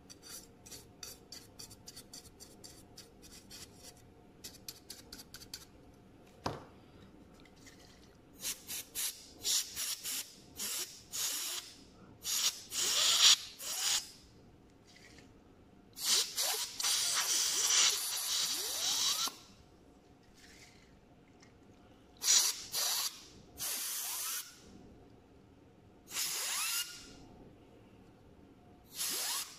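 Compressed air sprayed into a laptop cooling fan in short hissing blasts, one about three seconds long. The blown fan spins up with a rising whine, heard as a "very futuristic sound". Fast light ticks come before the first blast.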